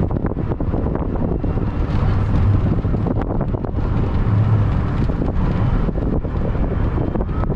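Wind buffeting the microphone: a loud, continuous low rumble that flutters with the gusts.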